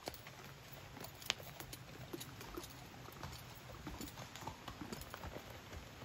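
Hoofbeats of a Missouri Fox Trotter gelding moving along a leaf-covered dirt trail: a steady run of soft thuds and leaf crunches, with one sharper click about a second in.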